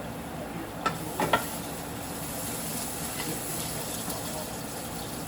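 Food frying in hot oil in a pan: a steady sizzle that grows a little brighter after the first second or so, with a few sharp metallic clinks about a second in.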